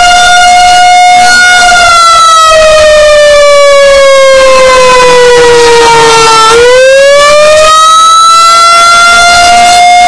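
Rotating pole-mounted outdoor warning siren sounding a loud, steady tone during a test. About a second and a half in, the pitch slides slowly lower for several seconds, then climbs back up to its first pitch.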